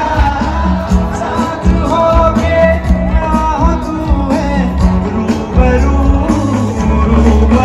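Live stage-show music: a singer with band accompaniment, loud and heavy in the bass.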